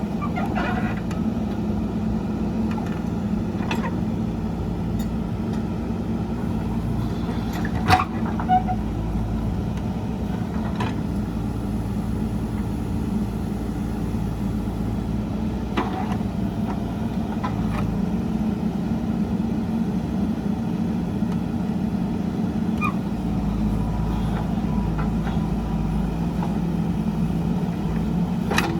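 Backhoe loader's diesel engine running steadily under work, with a few sharp knocks now and then, likely from the bucket or arm.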